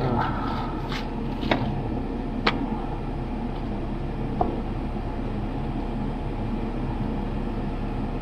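Van furnace running steadily, its blower making an even whir. A few light knocks come in the first few seconds as the coffee gear is handled.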